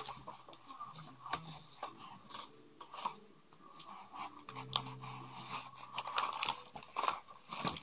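Close handling noise of a plastic fashion doll and its small accessories: irregular soft clicks, taps and crackles as fingers adjust the doll and fit a small plastic piece to its dress.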